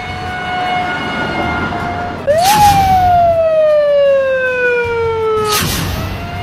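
Police siren holding one steady pitch, then about two seconds in jumping up sharply and louder and sliding slowly down over about three seconds, before snapping back to the steady pitch near the end with a brief rush of noise.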